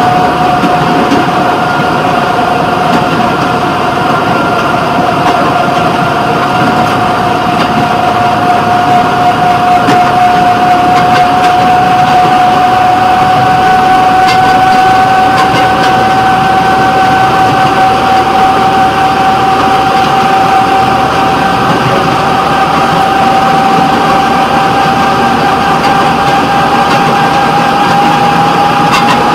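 Engine and running noise of a rail fire-patrol vehicle travelling along the track, loud and steady, with a high whine that slowly rises in pitch.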